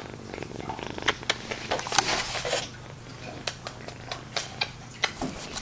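Scattered clicks and brief rustles of a kitten being handled close to the microphone.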